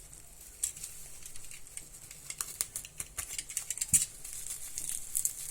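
Plastic bubble-wrap film being handled and unwrapped, crinkling with a run of irregular sharp crackles, the loudest about four seconds in.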